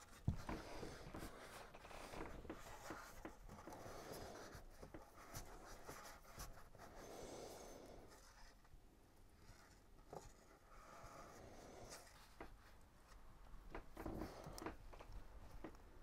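Faint rustling and small clicks of fingers handling and knotting monofilament fishing line, over quiet room tone.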